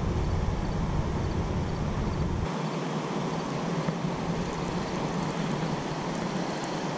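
Steady rushing wind noise on the microphone, with the deepest rumble cutting out abruptly about two and a half seconds in.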